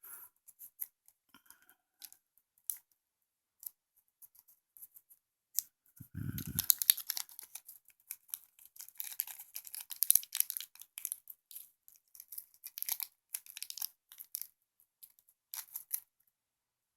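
Small plastic parts packaging crinkling and being torn open, with light clicks as the spring and roll pin are handled. There is a brief low thump about six seconds in, and the rustling stops about a second before the end.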